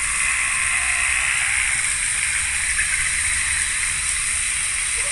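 Steady splashing of water from a fountain jet falling into an ornamental garden pond.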